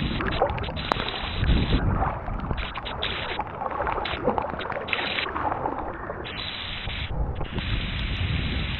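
Water sloshing and swishing around a person's legs as he wades through knee- to thigh-deep floodwater, coming in irregular surges.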